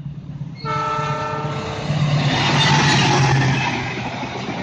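Diesel locomotive sounding its horn once for about a second as it approaches, then the locomotive and passenger coaches rushing past at speed, a loud rush of wheels and air over the engine's low rumble.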